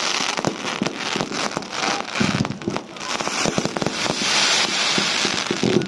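Fireworks display: a rapid run of bangs and pops from bursting aerial shells, over a dense crackling hiss that thickens about halfway through.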